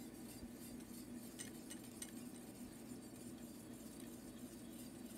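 Faint, scattered clinks of a wire whisk against a metal sauté pan as butter is whisked into a lemon butter sauce, over a low steady hum.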